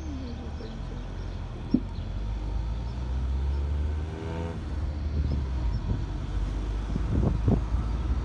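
Steady low rumble of a car driving, heard from inside the car, with its engine note rising for a moment about three to four seconds in and a few knocks as it rolls over the road.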